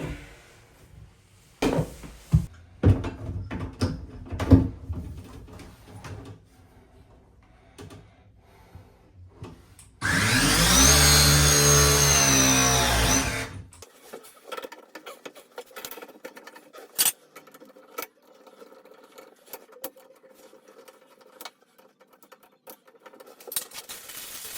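Knocks and clatter of tools and parts being handled, then a power drill runs for about three and a half seconds near the middle, its pitch shifting as it spins. Light clicks and taps follow.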